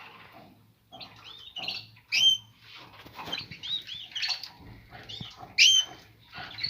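Caged canaries chirping: many short, quick calls scattered through, a couple of them louder.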